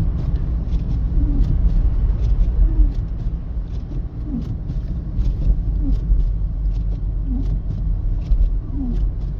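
Steady low road and tyre rumble inside a 2025 Mercedes-Benz GLC 300 driving on snowy streets. A short pitched blip repeats about every one and a half seconds.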